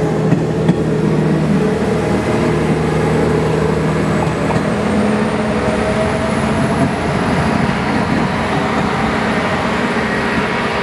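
Train running, a loud steady running noise with a low hum of held tones; a faint high whine rises in pitch about five seconds in.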